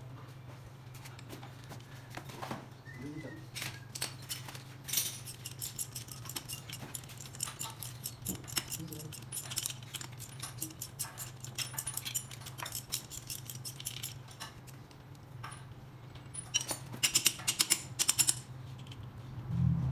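Hand ratchet wrench clicking in quick runs as bolts at the camshaft of a Suzuki K6A cylinder head are turned, with scattered metal tool clinks between. The loudest run of clicks comes near the end, over a steady low hum.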